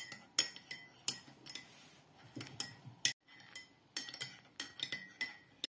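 Metal cutlery clinking against crockery at breakfast: a string of light, irregular clinks, several leaving a brief ringing tone.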